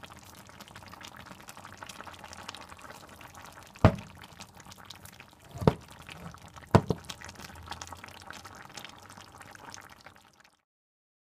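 Mackerel stew simmering in its gravy in a pot: a steady crackle of bubbling sauce, with three sharp pops at about four, five and a half and seven seconds in. It fades out near the end.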